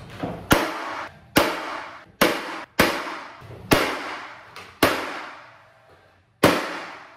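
Paslode cordless nailer firing nails through a new door jamb leg into the framing: seven sharp shots at irregular gaps of about a second, each with a brief fading tail.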